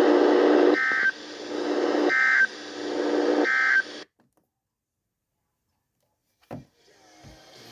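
Emergency Alert System end-of-message data signal: three short warbling data bursts about 1.4 s apart, with a loud hiss and low hum between them. All of it cuts off about 4 s in, marking the end of the alert. A single thump follows a couple of seconds later, then faint clicks.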